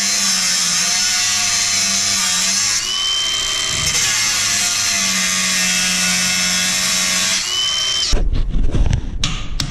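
Angle grinder running steadily under load, grinding off the old hinge pins of an aluminium step-bench, its whine shifting slightly as it bites. It cuts off about eight seconds in, followed by a few loud knocks and clatter.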